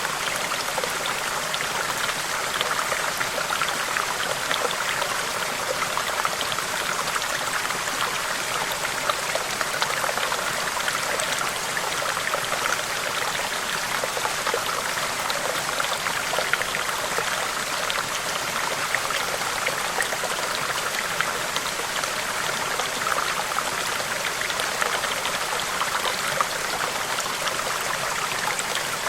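Running water, like a small stream babbling steadily, with many small splashes and trickles.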